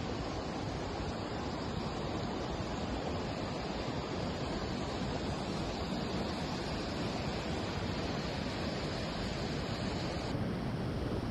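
Steady rush of a fast creek's whitewater pouring over small cascades and logs, with a slight change in tone near the end.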